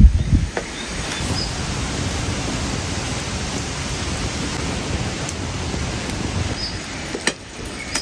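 Steady hiss of a stew cooking in a metal pan over an open wood fire, with a few knocks at the start as a wooden spoon stirs it.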